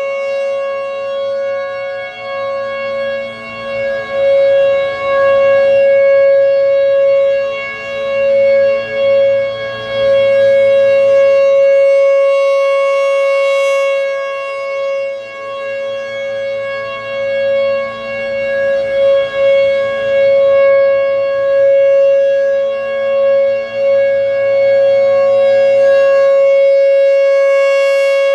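Federal Signal Thunderbolt 1000 outdoor warning siren sounding its steady alert tone, one held pitch that grows louder and fainter every several seconds as the rotating horn sweeps past.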